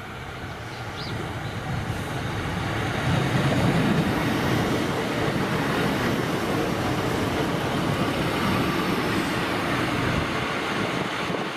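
Northern Class 156 diesel multiple unit running past at close range: diesel engine and wheels on the rails. The sound builds over the first three seconds as the train nears, then holds steady and loud as the cars go by.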